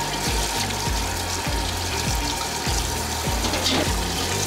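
Tap water running and splashing over pork backbones in a stainless steel pot as hands rub and rinse them. Background music with a steady low beat plays along.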